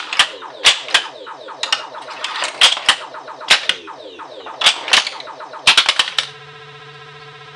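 1980 Williams Black Knight pinball machine in play: sharp clicks and knocks of its solenoids and the ball, among electronic sound effects that glide down in pitch. About six seconds in these stop and a steady buzzing electronic tone holds.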